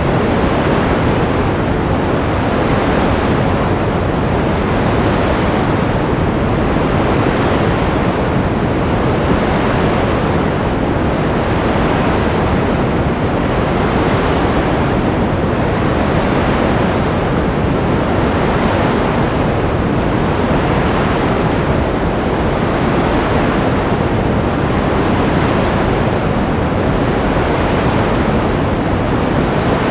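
Continuous rush of ocean surf, a dense, steady wash of noise with slight rises and falls in its hiss.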